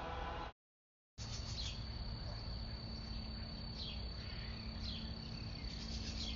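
Steady high-pitched insect drone, such as crickets or cicadas, with a few short falling bird chirps and a low background rumble. The sound cuts out completely for about half a second near the start.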